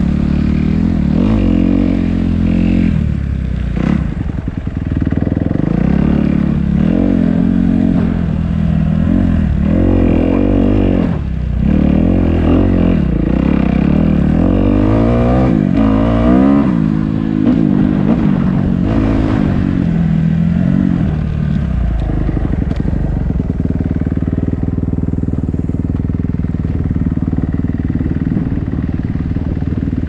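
Dirt bike engine heard from on the bike, its pitch rising and falling again and again as the rider accelerates and eases off, then settling into a steady run for the last several seconds.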